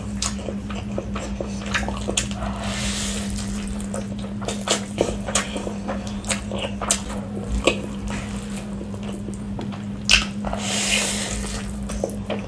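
Wet eating sounds of chicken biryani being squeezed by hand and stuffed into the mouth: chewing and lip-smacking with many short clicks, over a steady low hum.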